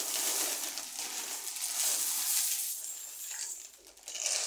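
Crinkly plastic cereal bag rustling as it is handled and tipped, then cereal flakes pouring out into a bowl near the end.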